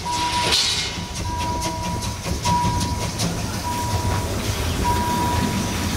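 Narrow-gauge steam tank locomotive 99 1734-5 rolling slowly towards the listener, with a low rumble, hissing steam and scattered clicks from its wheels and running gear on the rails. Throughout, an electronic warning beep sounds at one pitch, on and off about once a second.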